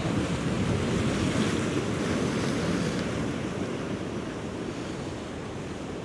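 Sea waves washing against a rocky shore, with wind buffeting the microphone; the wash swells over the first few seconds and then eases.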